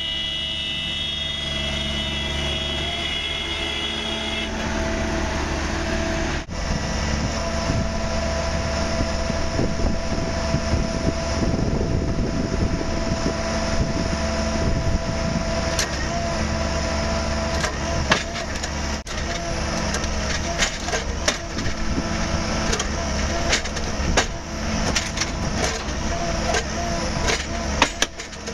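Engine of a rail track maintenance machine running steadily. For the first four seconds or so a railroad crossing's electronic warning signal sounds a high steady tone, then stops. From about halfway on, the machine's workhead at the rail gives sharp metallic clicks and knocks.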